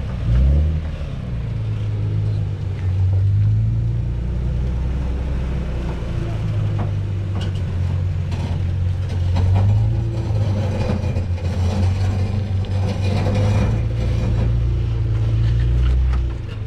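Off-road SUV engine running at low revs while crawling over rocks, swelling and easing with the throttle, with scattered short clicks and knocks.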